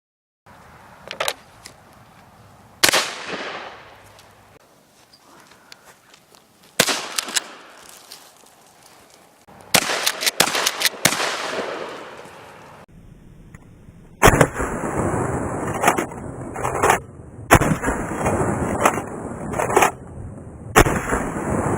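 Shotguns firing a series of single shots, one to a few seconds apart, with a few quicker pairs. In the second half wind rushes on the microphone between the shots.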